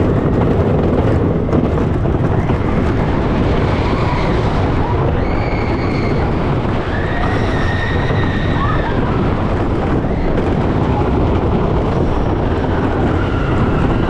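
Phoenix wooden roller coaster train running at speed along its wooden track, a steady loud rumble and rattle, with wind buffeting the microphone.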